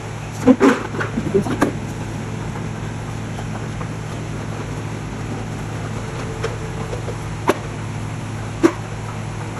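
Kitchen handling sounds: a cluster of clatters and knocks in the first two seconds, then single sharp knocks now and then, over a steady low hum.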